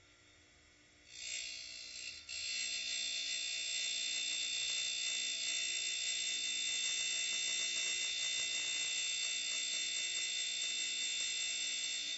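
Darex E90 end mill sharpener grinding the primary cutting edge along an end mill's flutes: a steady high-pitched whine and hiss that starts about a second in, falters briefly, then holds steady until it stops abruptly.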